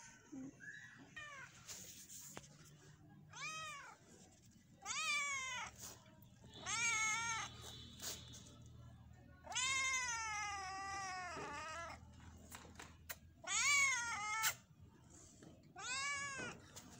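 Grey-and-white domestic cat meowing repeatedly, about six arching meows a second or two apart. One meow near the middle is drawn out for about two seconds, falling in pitch at the end.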